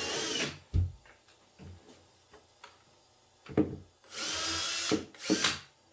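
Power drill spinning a Vix self-centering bit, boring shallow pilot holes dead centre in a drawer's screw holes. The drill runs briefly at the start, with a knock just after; a longer run comes about four seconds in, then a brief one.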